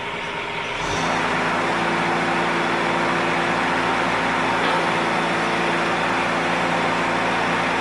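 Kubota diesel engine of a Bobcat 418 mini excavator running just after start-up. About a second in it steps up to a higher engine speed and then runs steadily.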